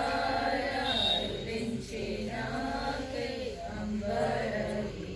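A group of voices singing together in a chant-like song, the notes held and sliding from one to the next.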